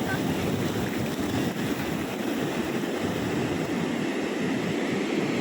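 Sea waves surging and breaking on a beach in a steady wash of noise, with wind buffeting the microphone.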